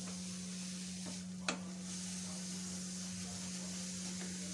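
Grated beetroot sizzling as it fries and is stirred with a wooden spatula in a metal kadai, with one sharp knock of the spatula on the pan about a second and a half in. A steady low hum runs underneath.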